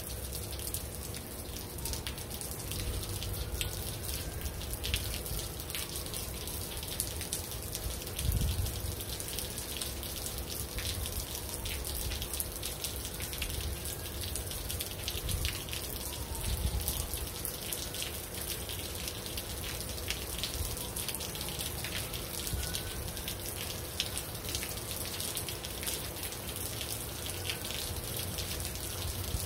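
Steady rain falling, with many individual drops ticking and dripping close by. A couple of low rumbles come about a third and again about halfway through, and a faint tone rises and falls every four to five seconds.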